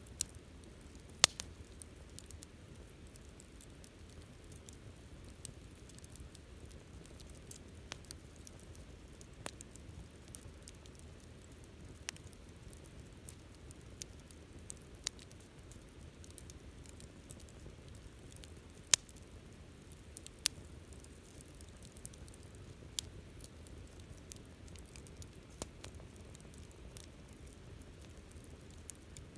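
Wood bonfire crackling: scattered sharp pops and snaps over a low, steady rustle of the flames. The loudest pops come about a second in and twice more, close together, past the middle.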